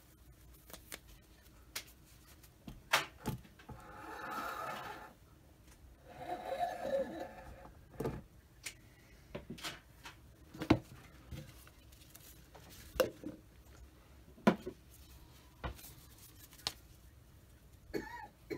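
Scattered clicks and knocks of small tools and parts being handled on a hobby workbench, with two short rustling, hissing stretches about four and six seconds in.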